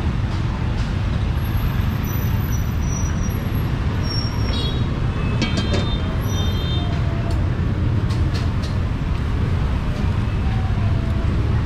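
Street traffic running steadily with a low rumble, mixed with background voices; a few short high-pitched squeaks come in around the middle.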